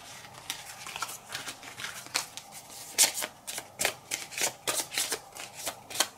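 A small deck of twelve playing cards being shuffled by hand: a quick run of card flicks and slaps that gets sharper and denser about halfway through.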